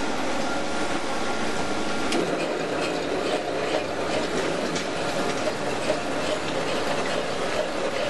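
V-KOC wire stripping machine with its 2.2 kW electric motor running steadily, a continuous mechanical clatter with a few small clicks, while cable passes through its cutting blade and squeezing rollers.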